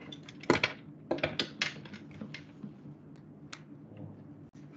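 Clicking and tapping on a laptop's keys, several quick clicks in the first two seconds and then a few scattered ones, over a steady low hum.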